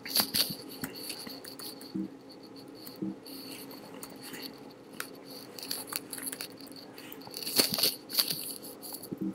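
Typing on a computer keyboard: irregular key clicks, with a quicker run of keystrokes near the end, over a faint steady hum.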